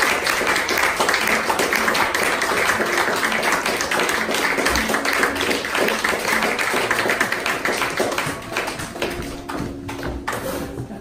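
Audience applauding, a dense patter of many hands, with music playing underneath; the clapping thins out over the last few seconds.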